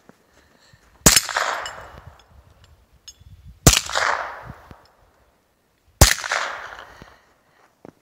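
Three single shots from a suppressed semi-automatic carbine, about two and a half seconds apart, each followed by a tail that dies away over about a second.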